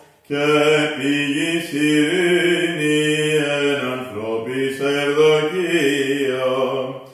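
Byzantine chant sung by a lone male voice: one long phrase of held notes stepping slowly up and down in pitch, starting after a brief pause for breath.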